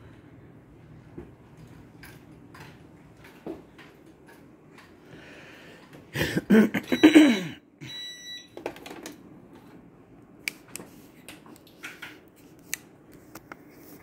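Two short, high electronic beeps about seven and eight seconds in. Just before them comes a louder sound sliding down in pitch, and light clicks and rustles run throughout.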